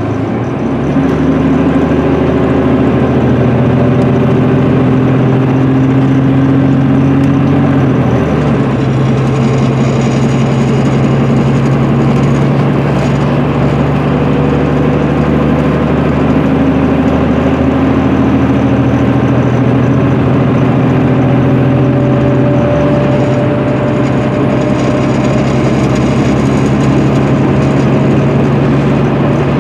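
Cummins ISM inline-six diesel of an MCI D4500CL coach running at road speed, heard from inside the passenger cabin over steady road noise. Its note steps in pitch about 8 seconds in and again about 23 seconds in.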